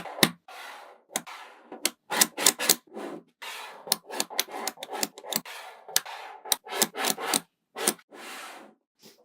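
Small magnetic balls snapping together with sharp clicks, often in quick runs of two to four, between stretches of the balls rattling and rolling against each other as they are handled.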